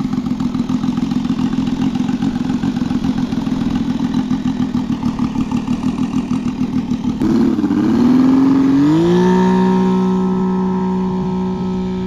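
Saito FG-33R3 three-cylinder four-stroke radial engine on an RC model plane, running at low throttle with an even pulsing beat. About seven seconds in the sound changes abruptly, the engine rises in pitch, and it then holds a steady high-rpm note that slowly fades.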